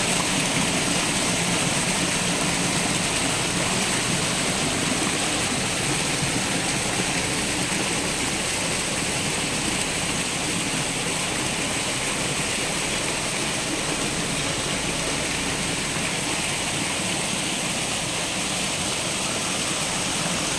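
Water splashing and churning steadily as a dense mass of red tilapia thrash at the surface, the sound of a feeding frenzy.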